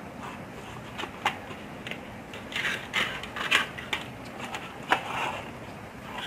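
Hands handling a plastic electrical switchboard and loose insulated wires: scattered light clicks and short rustles, with a sharper click about five seconds in.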